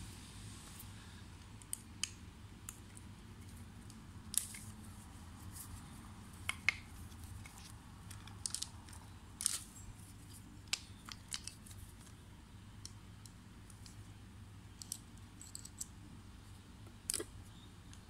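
Scattered, irregular small clicks and scrapes of a LOOK Keo Blade carbon clip-in pedal and metal tools being handled and worked at the spindle, over a steady low hum.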